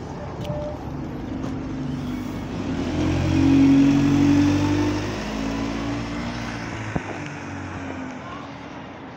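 A double-decker bus's engine pulling away from the stop, its pitch rising as it accelerates past, loudest about three to four seconds in, then fading as the bus drives off.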